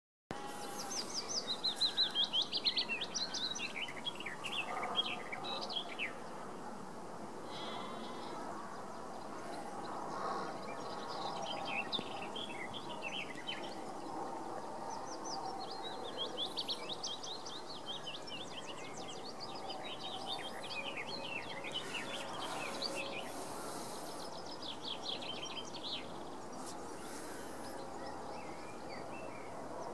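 Songbirds singing in repeated quick, chirping phrases every few seconds, over a steady hum of open countryside, with sheep bleating a few times in the background.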